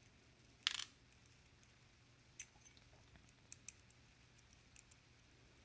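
Small parts and tools of a Lockwood MT5+ lock cylinder being handled during disassembly: a short scrape a little under a second in, then a few faint, scattered clicks.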